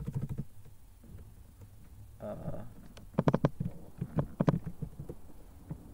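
Computer keyboard keystrokes: a quick run of key clicks at the start, then a few louder, sharper key strikes about three seconds in and one more a second later.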